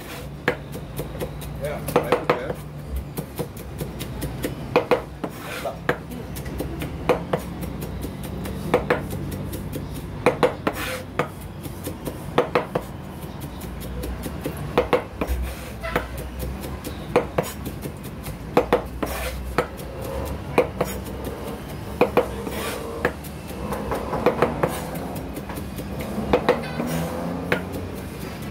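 Large kitchen knife chopping vegetables on a plastic cutting board: quick clusters of sharp knocks, two to four at a time, about every two seconds.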